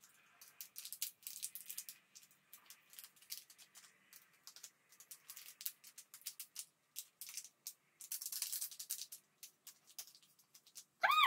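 Packaging crackling and rattling as a wristband is worked free of its package: many small, quick crackles and clicks, busiest about eight seconds in. Right at the end, a short high cry from a pet animal.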